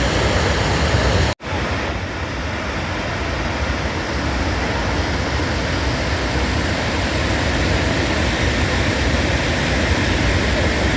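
Steady, loud rushing roar of a large waterfall, broken by a momentary dropout about a second and a half in.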